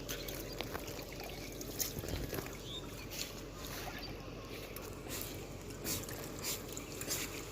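Water sloshing and trickling around a small fishing boat on a river, with scattered short knocks and splashes over a faint steady low hum.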